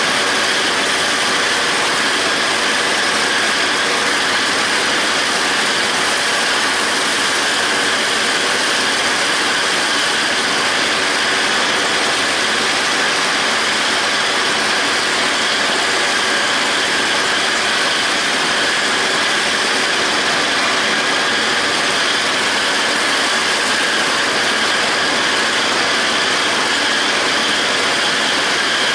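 John Deere 5320 tractor's diesel engine running steadily under load while a John Deere 270 disc mower's cutter discs spin, cutting grass hay.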